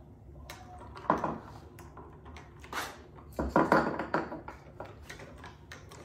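A spoon stirring coffee in a glass mug, knocking and scraping against the glass in irregular clinks, the loudest cluster about three and a half seconds in.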